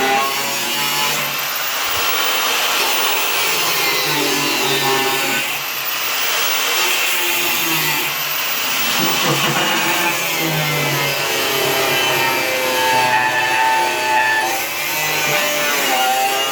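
Angle grinder working on steel bodywork, its motor whine dipping and recovering as it is pressed on and eased off.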